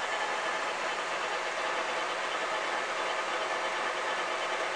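Bridgeport ROMI E-Z Path I CNC lathe running under power, its spindle still turning while the carriage moves slowly back toward its zero point. A steady mechanical hum with several faint tones, with no knocks or changes.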